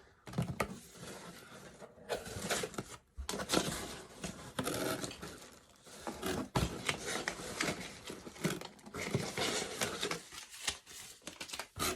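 A cardboard shipping box being opened by hand: irregular scraping, tearing and rustling of tape, cardboard and packing, with scattered clicks and knocks.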